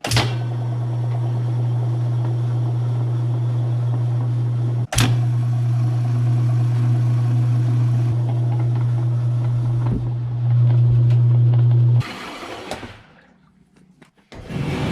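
Washing machine's electric water pump running with a loud, steady hum. It cuts out briefly about five seconds in, runs louder near the end, then stops.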